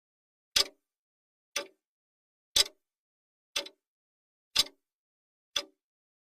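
Clock-style ticking of a countdown timer, one sharp tick a second, alternating louder and softer like a tick-tock, with silence between ticks.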